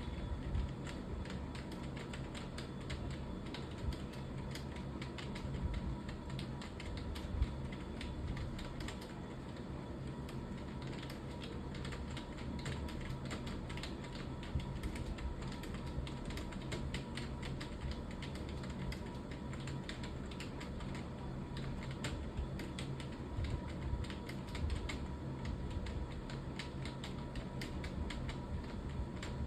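Computer keyboard being typed on at a fast, steady pace: a continuous stream of keystroke clicks, over a low steady hum.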